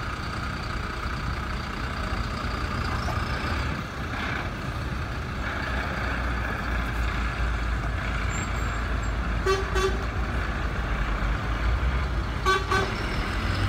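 Convoy of heavy fire trucks driving past with a steady low engine rumble; a vehicle horn gives two short toots, one about two-thirds of the way in and one near the end.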